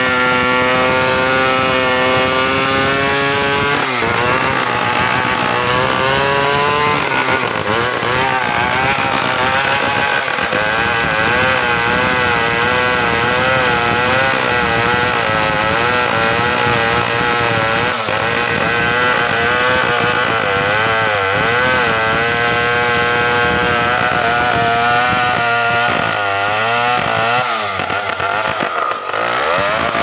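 Stihl chainsaw running at full throttle while felling a matoa tree. Its engine pitch is steady for the first few seconds, then wavers up and down as the chain works in the cut, and drops sharply and recovers near the end.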